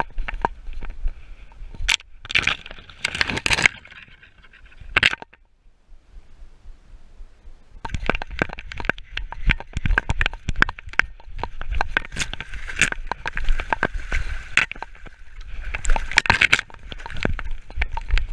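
Dense crackling, clicking and scraping right at a dog-mounted action camera as the dog moves through dry leaf litter and undergrowth, twigs and leaves rubbing against the camera. There is a quieter pause of a few seconds about a third of the way in.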